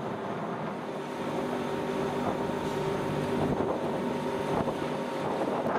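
Pilot boat's engine running steadily under way, a hum holding several steady tones that is strongest in the middle, with wind buffeting the microphone.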